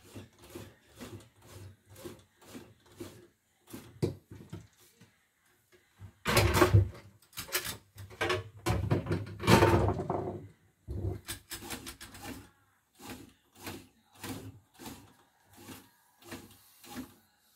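Knocking and clattering of the plastic body and parts of an opened portable embroidery machine being handled: a run of short clicks about two a second, with two louder rattling stretches in the middle.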